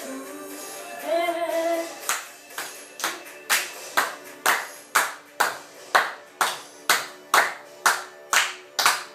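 Two children clapping their hands in a steady beat, about two claps a second, starting about two seconds in. Just before the clapping starts, a child's voice sings or calls briefly.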